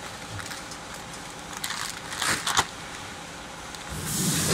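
Vertical packing machine running with a steady mechanical hum, with a couple of sharp clicks about halfway through. Near the end a filled plastic packing bag crinkles loudly as it is handled.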